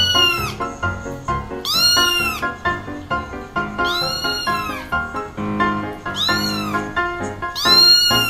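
Cat meows, each one a long rising-and-falling call, repeating about every two seconds over background music.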